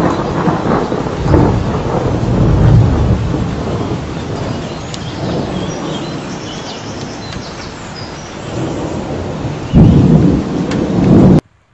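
Thunder rumbling in long, low swells over rain, with a sudden louder peal about ten seconds in; the sound cuts off abruptly near the end.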